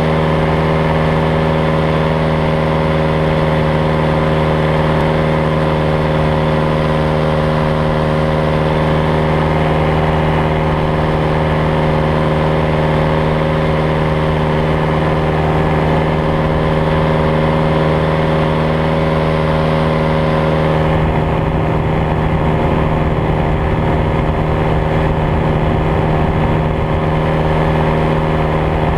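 Paramotor engine and propeller running steadily at cruise power in flight, a constant engine note. About two-thirds of the way through the sound changes and turns duller, losing much of its upper hiss.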